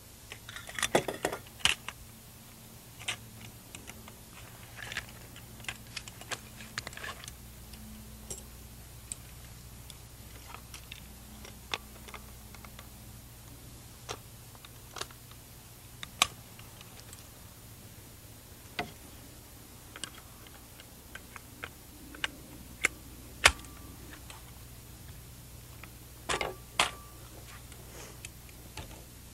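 Irregular sharp clicks, clacks and knocks of a .223 semi-automatic rifle being handled as it is taken out of its wooden stock and fitted into a plastic one. There is a small flurry of clicks about a second in and another near the end, with the loudest knock about three-quarters of the way through, over a faint steady hum.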